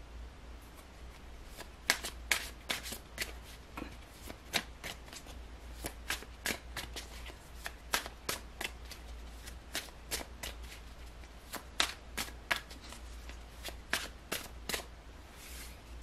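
A tarot deck being shuffled by hand: a run of crisp card snaps, several a second, starting about two seconds in and stopping near the end, over a steady low hum.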